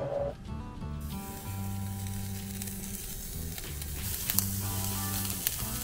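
Slices of Maultaschen sizzling as they are laid one by one on the hot grate of a gas grill. The sizzle sets in about a second in, with a few small ticks as pieces go down. Background music plays underneath.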